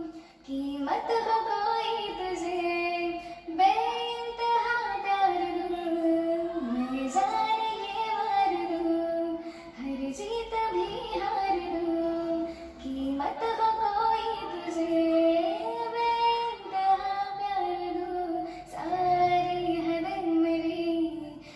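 A child singing a melodic song solo in a high voice, in long held phrases with short pauses for breath.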